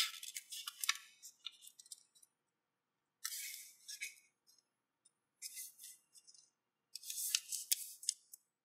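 Sheet of origami paper rustling and crinkling in short bursts as hands fold it and press the creases flat, four separate bouts with silent gaps between.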